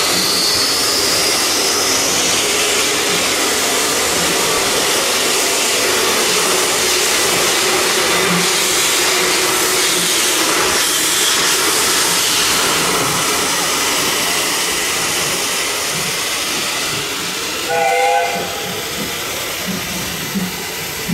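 Small 0-4-2 steam locomotive hissing steadily as it moves slowly past, steam blowing out low around its cylinders. A brief higher tone sounds near the end.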